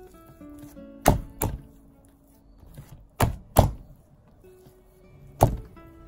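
Sticky, high-hydration bread dough slapped down onto the worktop during hand kneading: five sharp thuds, two quick pairs and then one near the end. Soft background music plays underneath.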